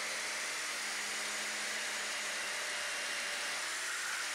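Power drill driving a drill-mounted chainsaw attachment, its chain sawing steadily through a thick round log: an even motor and chain sound under load, with a steady hum.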